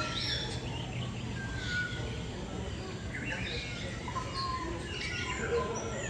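Several birds chirping and calling at once, with short chirps and brief whistles overlapping, over a steady low background noise.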